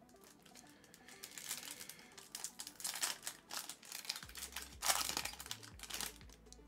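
Foil wrapper of a Panini Prizm trading-card pack crinkling in a dense run of crackles as it is handled and torn open, the loudest crackle a little before five seconds in.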